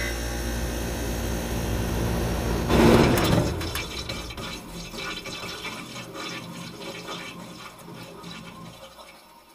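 Logo sound effect: a rushing, water-like noise that swells to a peak about three seconds in, then slowly fades away.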